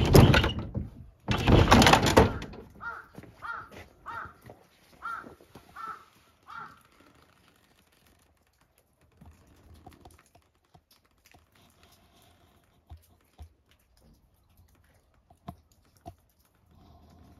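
A wooden sliding door rattling open along its track in two loud pulls, then a crow cawing about six times in a steady series. Faint scattered ticks follow.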